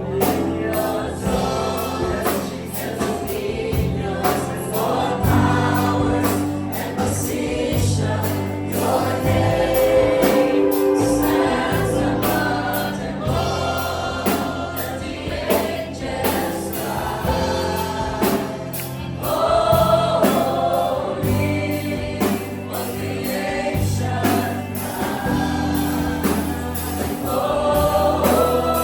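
A congregation or choir singing a worship song together, backed by a band with bass and drums keeping a steady beat.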